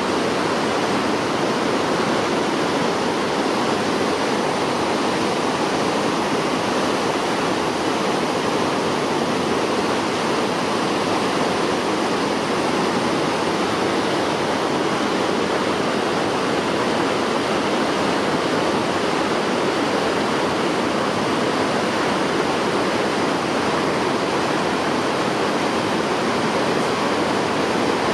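Steady rush of mountain river water tumbling over rocks and falls, loud and even.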